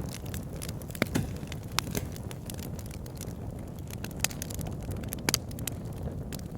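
Wood fire burning in a log burner: a steady low rumble of flames with scattered sharp crackles and pops from the logs, two close together about five seconds in.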